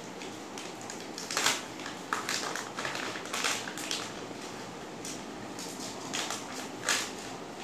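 Crinkly sausage packet being handled and crumpled, crackling and rustling in irregular bursts, loudest about a second and a half in and again near the end.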